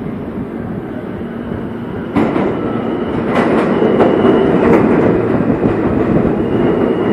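R160 subway train pulling into the station. Its rumble grows suddenly louder about two seconds in and swells as the cars pass close by. Sharp wheel clacks over rail joints and a faint high whine ride on top.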